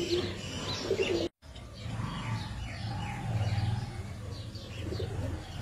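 Small birds chirping repeatedly, with pigeons cooing low underneath.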